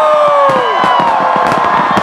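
Large crowd cheering and whooping at a fireworks display, with long falling whoops and firework bangs and crackles underneath.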